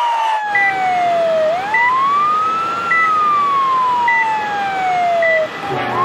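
Ambulance siren wailing: a tone that climbs quickly and falls slowly, twice over, with a short high beep about every second. Near the end it cuts to another siren starting to rise over a low rumble.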